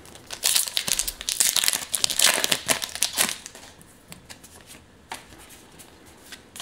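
Pokémon booster pack's foil wrapper crinkling and tearing as it is opened, loud for about three seconds. After that come softer ticks and rustles as the cards are slid out and fanned.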